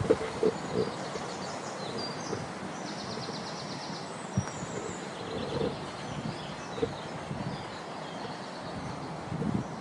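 Small birds singing in quick, high trills over a steady outdoor rush of background noise, with a few soft thumps scattered through.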